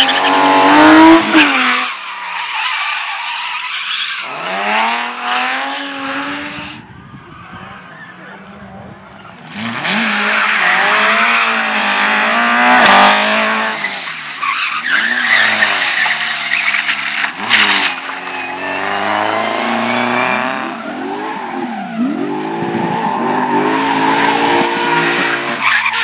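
Rally cars on a slalom course, engines revving hard and dropping back again and again as they accelerate and brake, with tyres squealing and skidding. There is a short lull partway through before the revving and tyre noise pick up loudly again.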